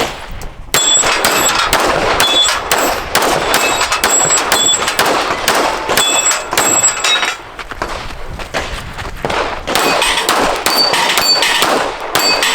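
Pistol shots fired in quick succession with steel targets ringing on hits, starting about a second in; the firing eases off for a couple of seconds past the middle, then another string of shots and steel rings follows.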